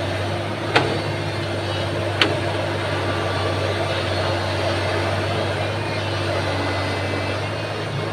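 Excavator diesel engine running steadily, with two sharp knocks about a second and a half apart early on.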